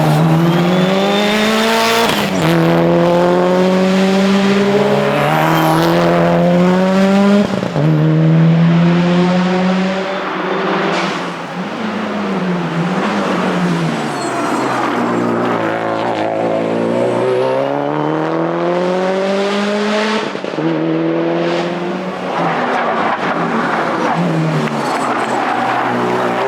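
Subaru WRX STI rally car's turbocharged flat-four engine pulling hard through the gears. Its pitch climbs and drops back sharply at each upshift. About halfway through it eases off and falls in pitch as the car slows for a corner, then climbs through the gears again.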